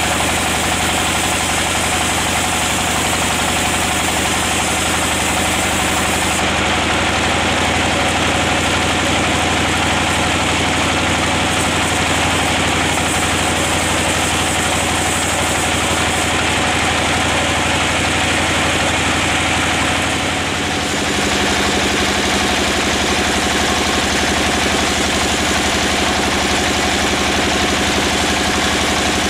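Band-saw mill running steadily, its blade cutting lengthwise through a red-wooded log: a continuous loud machine drone with the noise of the blade in the wood. The sound dips briefly about two-thirds of the way through, and the low hum shifts slightly after it.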